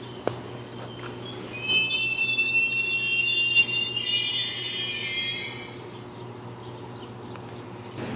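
Steel wheels of a GO Transit bilevel commuter train squealing as it rolls along the station platform: several high squealing tones, rising slightly in pitch, start about two seconds in and fade out about five and a half seconds in.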